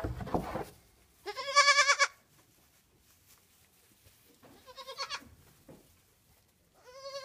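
Nubian goat kids bleating: three high, wavering bleats, the first about a second in and the loudest, a fainter one midway, and a third starting near the end.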